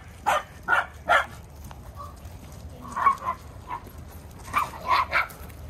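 Dogs barking in short sharp barks: three quick barks near the start, a pause, then a few more barks near the end.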